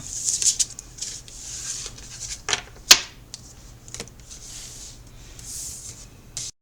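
Tarot cards being shuffled and handled: soft papery rustling with a few sharp taps, the loudest about three seconds in.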